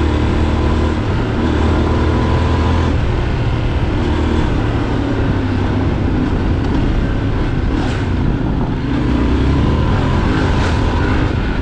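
Adventure motorcycle engine running under way on a dirt track, its pitch rising and falling with the throttle, over a steady rush of noise. Two short knocks come in the second half.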